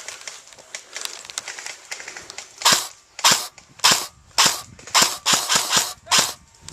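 Airsoft rifle firing: after about two and a half seconds of quiet rustle, short bursts come about every half second, then a longer rapid string of shots and one more short burst near the end.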